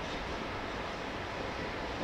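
Norfolk Southern freight train rolling past, a steady rumble of car wheels on the rails with no distinct clicks or squeals.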